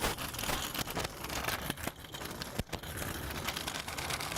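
Kick scooter rolling over pavement: a steady gritty wheel noise with irregular clicks and rattles, and one sharp knock a little past halfway.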